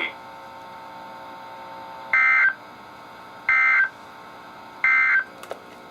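Three short warbling data bursts of an EAS/SAME digital code sent over NOAA Weather Radio, about 1.4 seconds apart, each lasting under half a second: the end-of-message signal closing the tornado warning. Between the bursts the received station's quiet steady hiss is heard.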